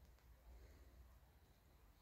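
Near silence: faint outdoor background with a low rumble.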